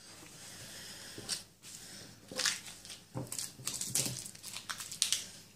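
Plastic snack packaging rustling and crinkling in the hands, in irregular bursts.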